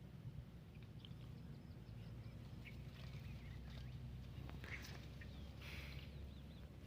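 Faint wild bird calls: quick series of short, high chirps with a few brief whistled glides, over a steady low background rumble.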